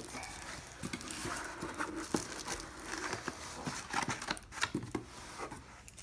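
Packaging rustling and scraping as a ceiling-fan blade is slid out of its cardboard box and foam insert: irregular crinkles, scuffs and light knocks throughout.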